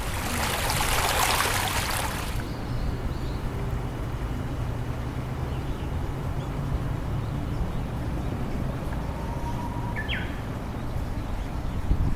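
Outdoor background: a rush of noise for the first two seconds or so, then a steady low hum, with a single short bird chirp about ten seconds in.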